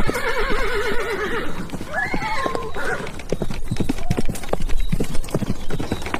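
Horse neighing over a fast clatter of hooves. A long wavering whinny comes in the first second and a half, and a shorter call about two seconds in.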